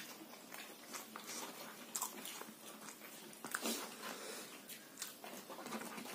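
Close-up wet chewing and lip smacking of a man eating pork curry and rice by hand, with irregular sharp smacks and clicks.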